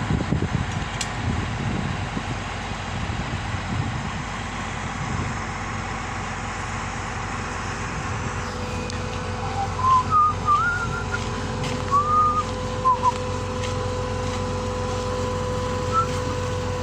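Low rumble of vehicle engines, with a steady whine coming in about ten seconds in. Several short whistled notes that rise and fall sound over it around the middle.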